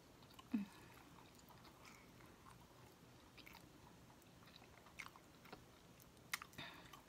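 Faint close-up chewing of rotisserie chicken meat with wet mouth clicks and lip smacks, a few sharp ones near the end as more meat goes into the mouth. There is a brief low hum about half a second in.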